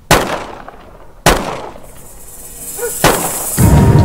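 Three gunshots about a second or two apart, each followed by an echoing tail. A loud low rumble sets in shortly before the end.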